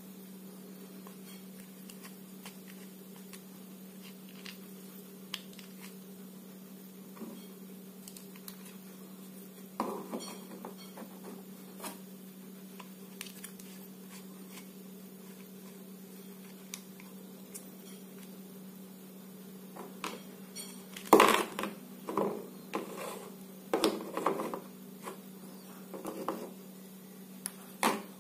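Hard plastic toy-truck parts clacking and knocking as they are handled and set down on a wooden table: a few scattered clicks at first, then a busier run of knocks in the last third, the loudest about two-thirds of the way in. A steady low hum runs underneath.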